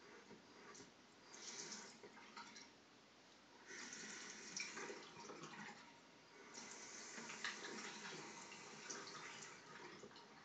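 Water hissing and spluttering through a toilet tank's fill valve as it refills, in three uneven surges that thin out near the end.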